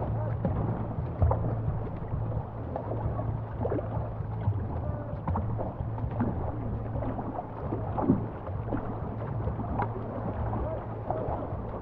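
Canoe paddles dipping and pulling through river water as the canoe moves, with water washing along the hull and a few sharper splashes or knocks.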